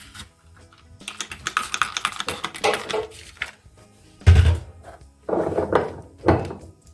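Rapid clicking and clattering of containers and food items being handled while a refrigerator is organized, with a heavy thump about four seconds in, over background music.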